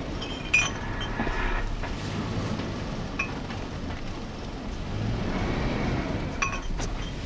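Off-road vehicle driving through snow, its engine running steadily, with a few sharp knocks and clinks, the loudest about half a second in.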